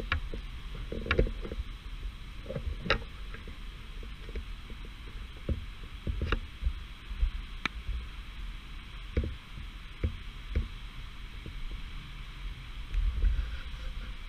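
Hail and rain falling, a steady hiss broken by irregular sharp ticks of hailstones striking, with gusty wind rumbling on the microphone.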